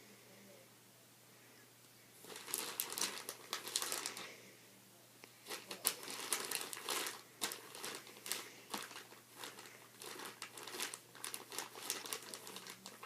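Slime being squeezed and kneaded by hand, making dense crackling and popping clicks. It starts about two seconds in, pauses briefly, then runs on almost without a break.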